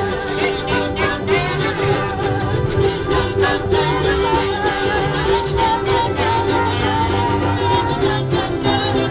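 A large group of ukuleles strummed together in a steady rhythm, with many voices singing along.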